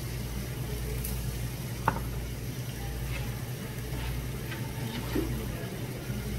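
Pork belly and squid sizzling on a hot tabletop grill plate, a soft steady hiss over a constant low hum, with a single sharp click a little under two seconds in.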